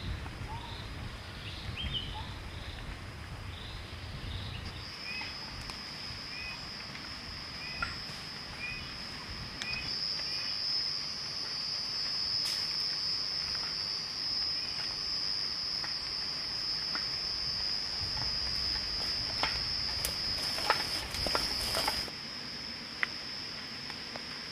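Insects droning in a steady high-pitched chorus that grows louder about five seconds in. A bird calls over it in short repeated notes during the first half. Near the end come a few sharp clicks or knocks.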